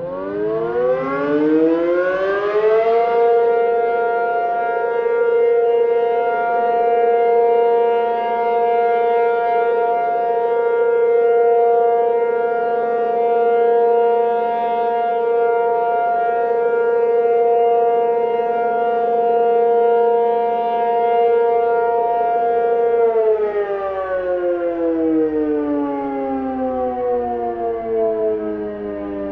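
Tornado warning siren winding up, rising in pitch over the first few seconds, then holding one steady tone for about twenty seconds before winding down with a slowly falling pitch near the end.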